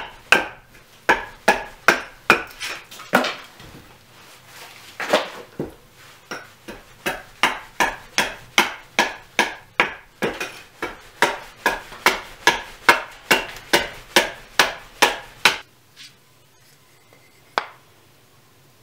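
Hultafors axe hewing the side of a green birch log on a chopping stump: steady blows at about two to three a second, with a lighter stretch about four seconds in. The blows stop a few seconds before the end.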